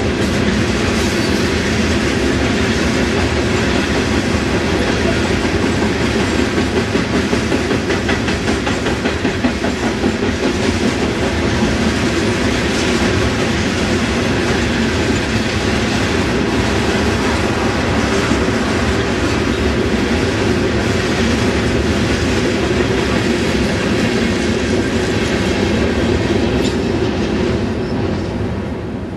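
CSX freight train of open-top cars rolling past at a grade crossing: a steady rumble with the clickety-clack of wheels over the rail joints. The sound fades out near the end as the train clears the crossing.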